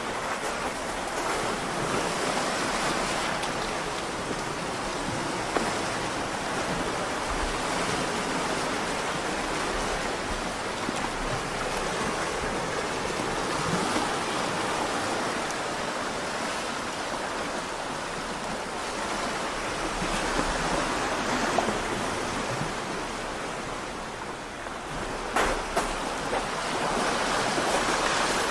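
Waves washing on a beach: a steady rush of surf that swells and eases slowly, with a couple of short clicks near the end.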